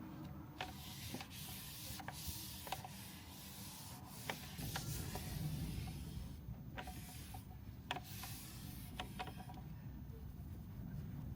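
Rustling and handling noises of objects being moved about, with scattered small clicks and knocks, over a steady low rumble.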